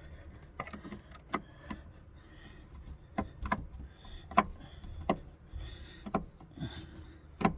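Small screwdriver working at marred-up screws in a propane fridge's frame, giving irregular sharp metal clicks and taps, loudest about four and a half seconds in and again near the end.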